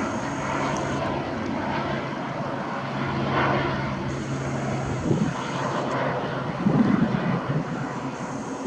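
Airplane flying overhead, its engine a steady low drone that drops away about five seconds in.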